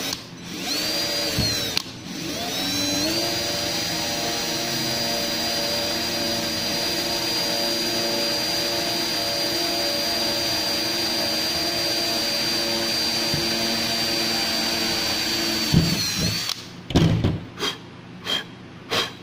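Cordless drill with a small twist bit drilling a hole through the plastic seat-belt arm housing. A short spin comes first, then the motor speeds up and runs steadily for about thirteen seconds before winding down. A few knocks follow near the end.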